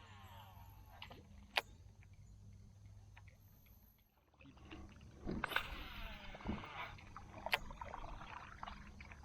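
Faint water splashing and sloshing around a small jon boat, with a low steady hum underneath. A busier stretch of splashing starts about five seconds in, and two sharp clicks stand out, one early and one near the end.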